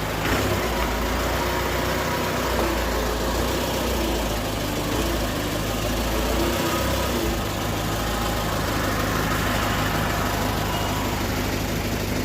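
Diesel bus engine running steadily with a deep, low exhaust note, the 'ngorok' (snoring) exhaust sound.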